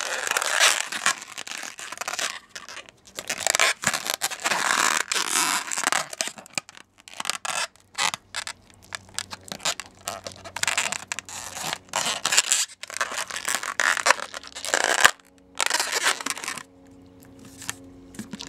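Inflated latex twisting balloons rubbing and scraping under the fingers in irregular bursts as the red balloon's nozzle and tail are stretched and tied into a knot. The handling noise drops away near the end.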